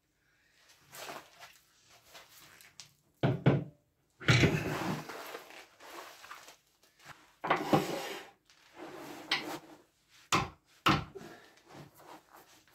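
A heavy alder log being handled and fitted onto a wood lathe: irregular thuds and knocks, with a few longer scraping, rustling stretches of bark against wood and metal. Two sharp knocks come close together about two-thirds of the way through.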